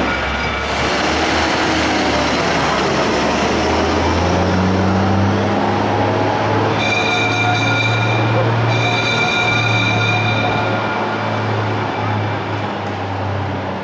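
Vintage fire engine's bell ringing in two steady spells about halfway through, over the engine noise of fire appliances driving past.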